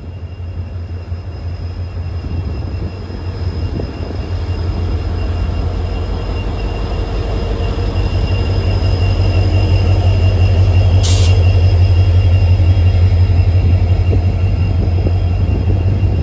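WDG-4 diesel locomotive's 16-cylinder two-stroke engine humming as a deep drone that grows steadily louder, with a thin, steady high whine over it. A brief hiss cuts in about two-thirds of the way through.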